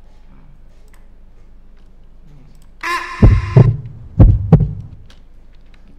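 Heartbeat sound effect played back from an audio file: two double 'lub-dub' thumps about a second apart, the first joined by a brief high ringing tone. It is a cue for tense horror scenes.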